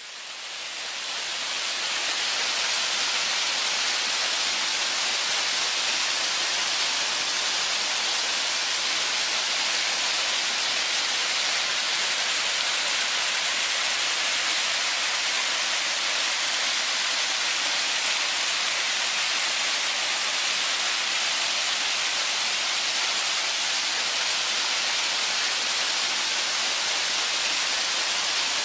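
Mountain stream rushing steadily, fading in over the first couple of seconds.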